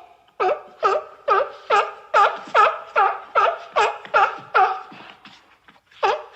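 Sea lion barking in a rapid run of short, honking calls, about two to three a second, that breaks off for about a second near the end and then starts again.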